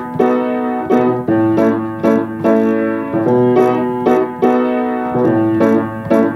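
Piano playing the opening of a pop song: full chords struck again and again in a steady rhythm, about two to three a second.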